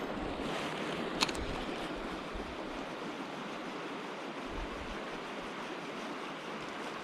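Mountain stream water rushing steadily, with a single sharp click about a second in.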